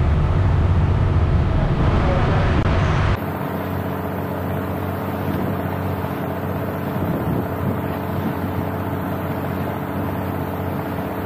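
Passenger motorboat underway: the engine runs with a steady hum over the rush of water from the wake. For the first three seconds heavy wind rumble on the microphone covers it, then the sound changes abruptly to the steadier engine hum and water.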